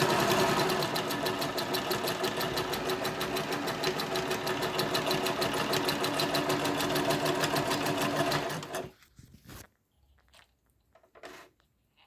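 Pfaff 204 sewing machine running at a fast, steady stitching rhythm while sewing zigzag stitch. It stops about nine seconds in, and a few faint clicks follow.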